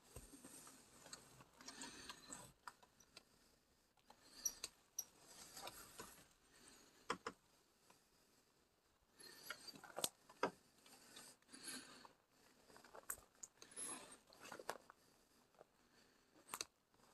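Faint, irregular rustling and scattered light clicks of someone moving on foot through dry grass and debris.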